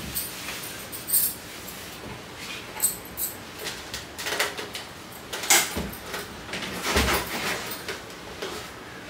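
Irregular knocks, rattles and rustling of household objects being handled and moved about a room, with a few sharper knocks about three, five and a half and seven seconds in.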